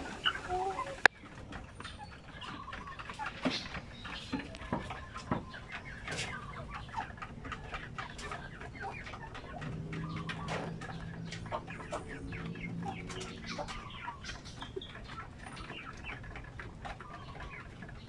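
Chickens clucking softly while pecking grain from a bamboo feed trough, with many quick taps of beaks on the wood.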